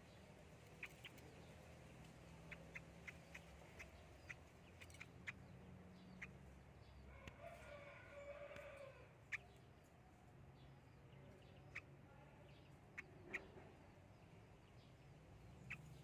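Near silence: a faint low hum with a scatter of small soft clicks, and around the middle one faint, distant pitched animal call lasting about a second and a half.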